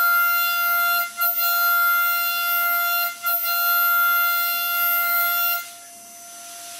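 CNC machine cutting metal: the cutting tool whines at one steady high pitch, with brief breaks about one and three seconds in. The whine stops near the end, leaving a soft hiss.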